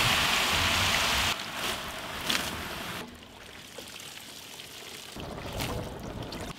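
Water pouring and dripping off a ladle heaped with wet apple slices as they are lifted out of a large metal pot to drain. The steady pouring is loudest at first and drops off about a second and a half in, leaving quieter dribbling and a few light knocks.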